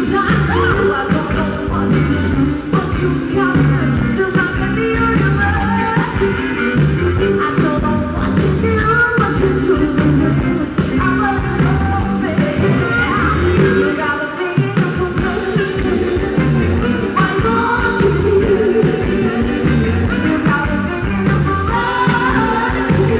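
Live blues-rock band playing: women's voices singing over electric guitar, bass guitar, drums and harmonica. The bass drops out for a moment about two-thirds of the way through.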